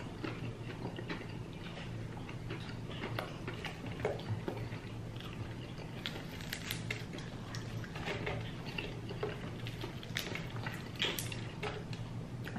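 People chewing and biting food close to the microphone, with scattered small crackling clicks, over a steady low hum.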